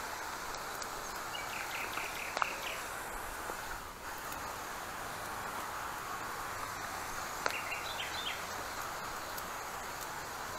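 Pressure sprayer's nozzle hissing steadily as it sprays weed killer, breaking off briefly about four seconds in. A bird chirps in short runs twice.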